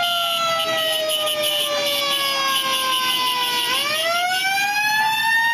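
Emergency vehicle siren wailing: its pitch falls slowly for about three and a half seconds, then swings back up and keeps climbing.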